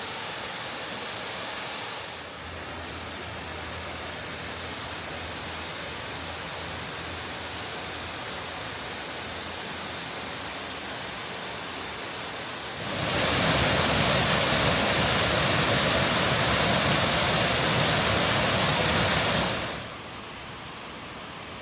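Waterfall rushing in a steady noise. Just past the middle the sound grows much louder and fuller for about seven seconds, then falls back to its earlier level.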